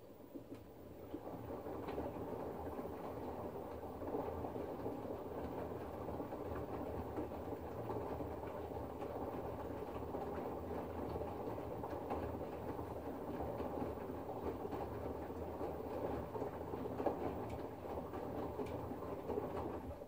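LG front-loading washing machine's drum starting to turn and tumbling wet laundry: a steady low rumble with a light clatter that builds up over the first couple of seconds and cuts off suddenly at the end.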